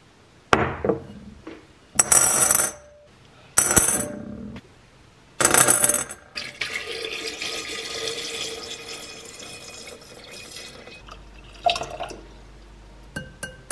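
Coloured decorative pebbles poured into an empty glass fishbowl, clattering and ringing against the glass in several short bursts. Then water is poured in and fills the bowl steadily for several seconds.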